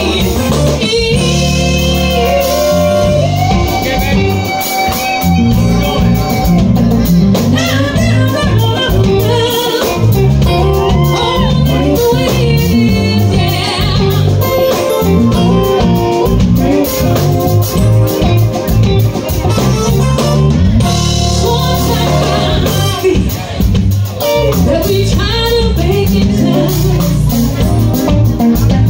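A live band playing with a woman singing lead into a microphone, over keyboard, drum kit and guitar, heard through the venue's PA.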